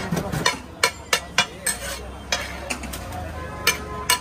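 Flat metal spatula stirring and scraping a large mound of pulao on a big iron tawa griddle, with irregular sharp clinks and scrapes each time the blade strikes the pan.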